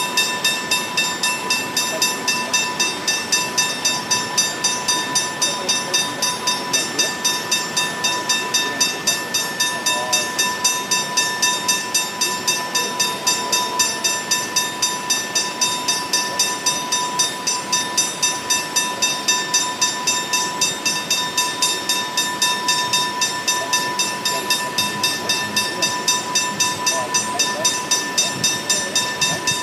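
Level crossing warning bell ringing steadily and rapidly, about three strikes a second, with the boom gates down to warn of an approaching train.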